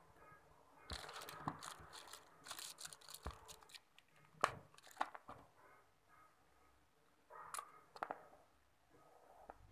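Plastic and paper packaging of a disposable syringe and needle crinkling and tearing as it is opened and handled, a dense crackle lasting about three seconds. A few sharp clicks and a short crinkle follow.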